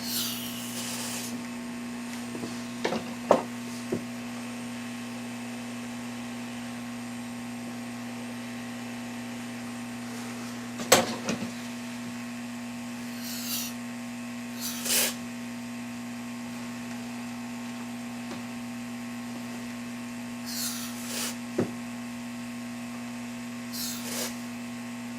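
Several short hisses of freeze spray, each about a second long, cooling chips on a circuit board to find a temperature-sensitive fault. A steady electrical hum runs underneath, and there is a sharp click about 11 seconds in.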